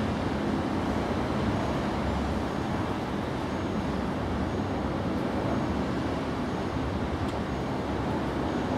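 Steady outdoor background rumble and hiss, even in level throughout.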